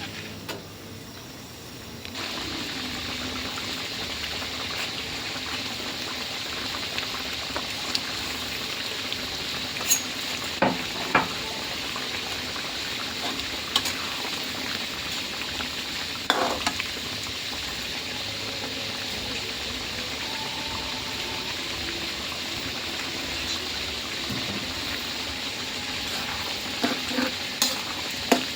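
Pot of green curry bubbling on the stove, a steady sizzling-bubbling hiss that comes up about two seconds in, with a few sharp clinks of a utensil against the pot.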